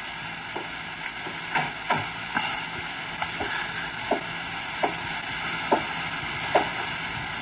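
Slow footsteps across creaking wooden floorboards, a radio-drama sound effect: about eight separate creaks, each dropping in pitch, spaced irregularly about a second apart, over steady recording hiss.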